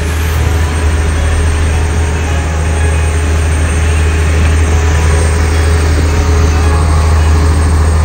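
A passenger boat's engine running with a steady low hum, heard from on board over a constant rushing noise.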